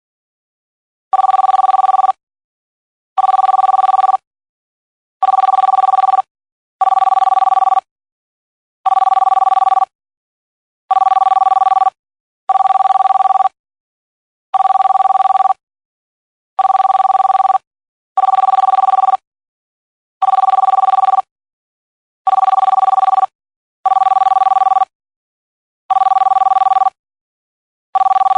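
Telephone ringing: about fifteen one-second rings, each a two-tone fluttering trill, repeating every one and a half to two seconds with silence between.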